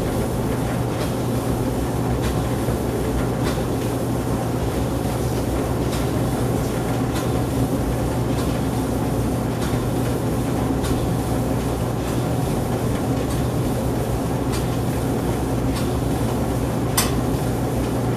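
Old Whirlpool/Kirkland gas clothes dryer running, with a steady motor hum and a faint tick about once a second. One sharper click comes near the end. This is the warm-up stage: the drum and blower are turning while the ignitor heats up and the burner is not yet lit.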